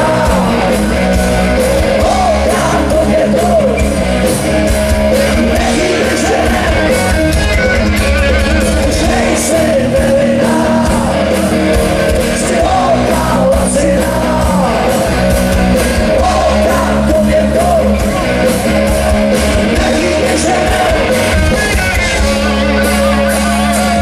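Loud live rock music from a band playing electric guitars, bass and drums, with a singer. It runs continuously with no pause.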